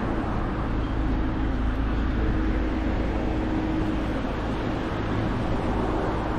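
Road traffic: a vehicle engine's steady hum over a continuous low rumble, the hum fading about four seconds in.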